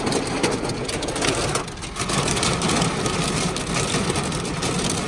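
Hail and heavy rain drumming on a car's roof and windows, heard from inside the cabin: a dense, rapid patter of many small impacts that dips briefly about two seconds in.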